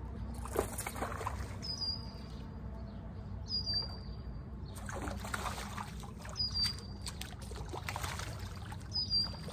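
A bird gives four short, high chirps a couple of seconds apart, over splashing and trickling water and a steady low rumble.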